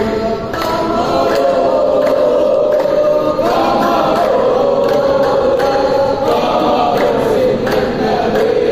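A group of men singing a devotional chant together in unison, holding long notes that rise and fall.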